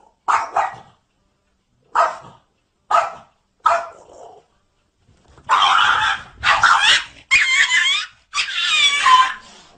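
A small dog barking: short single barks about a second apart, then, from a little past halfway, a louder run of longer calls with a wavering pitch.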